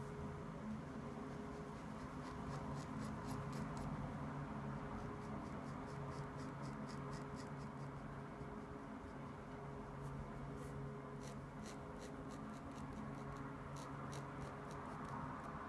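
Sketching on paper: a drawing tool scratching in short, irregular strokes, over a steady low hum.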